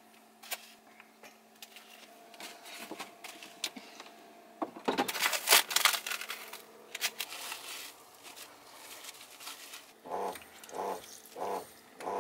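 Thin plastic wrap crinkling as it is peeled off a plastic tray of fresh abalone, loudest about five to seven seconds in, after scattered light clicks and taps. Near the end come four short, evenly spaced pulses.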